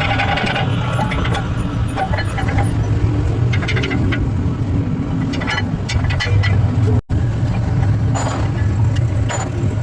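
A car running with a steady low hum and scattered clicks and knocks; the sound drops out for a moment about seven seconds in.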